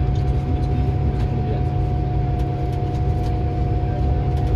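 Scania coach heard from inside the passenger cabin: the engine running with a steady low rumble and a steady high whine, with light clicks and rattles from the interior.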